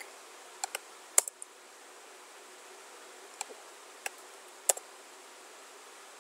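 Several sharp computer mouse clicks, the loudest about a second in and another near the five-second mark, over a steady faint hiss of microphone background noise.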